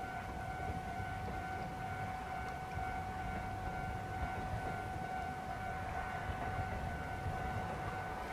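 Trackside railway warning alarm ringing steadily on one pitch, over the low rumble of a KiHa 200 series diesel railcar approaching at very low speed.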